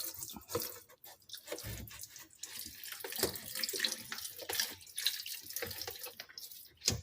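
Water from a tap running and splashing unevenly while a rusty washing machine part is rinsed and scrubbed under it by hand, with small knocks of the part being handled.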